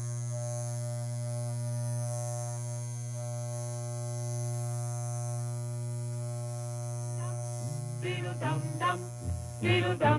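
Steady electrical mains hum with a faint high hiss above it. About eight seconds in, a voice starts over the hum.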